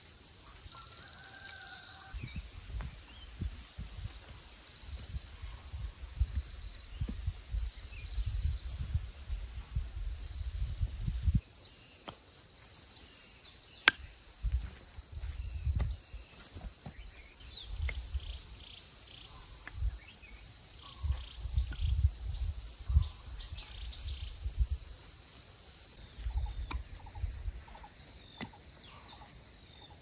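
Insects trilling in a steady high drone that pulses in places, with a few brief bird chirps. Low rumbling bumps come and go, with a sharp click about halfway through.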